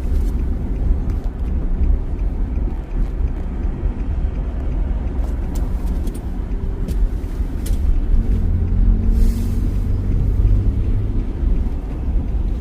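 Road and engine noise of a car driving on the freeway, heard from inside the cabin: a steady low rumble that grows louder for a couple of seconds about nine seconds in.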